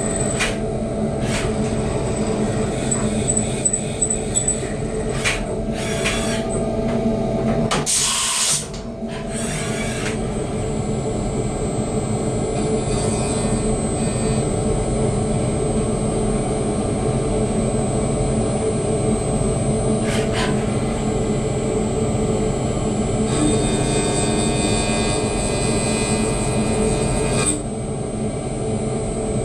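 Dure Vertical 5060 CNC milling machine running a job on a casting: a steady machine hum with a thin high whine, broken by a few short hissing bursts about six to ten seconds in and a busier, rougher stretch near the end.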